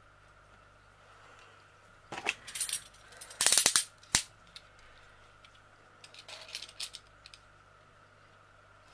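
Sharp clicks and clatters from a blade and an aluminium straight edge as a diamond painting canvas is trimmed. A few come around two seconds in, the loudest cluster about three and a half seconds in, with one sharp click just after, then a quieter scattered group near the end.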